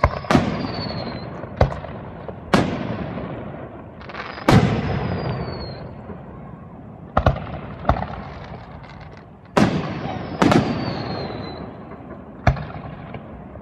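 Aerial firework shells bursting: about ten sharp bangs at irregular intervals, each trailing off in a long rumbling echo.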